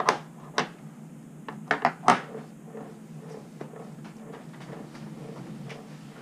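Quick sharp clicks and knocks, about seven in the first two seconds, as tweezers and small metal lock parts are set down on a desk, followed by a few faint taps.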